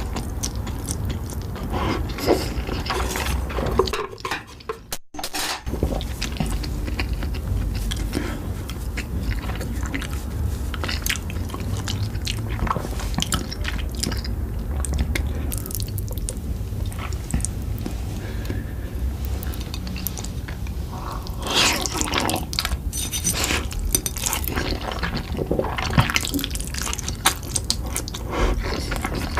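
Close-miked eating sounds of spicy Korean food: wet, clicky chewing and slurping, with an occasional clink of utensils. There is a brief drop-out about four seconds in.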